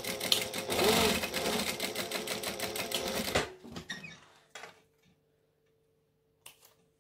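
Industrial sewing machine running at speed, stitching a seam in vinyl, then stopping after about three and a half seconds. A couple of small clicks near the end.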